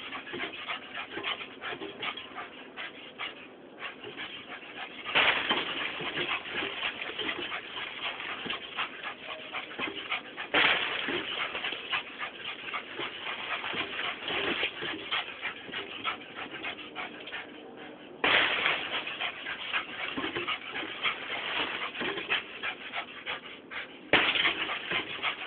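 Dog whining and yipping over a dense, scratchy patter. The sound jumps abruptly louder four times.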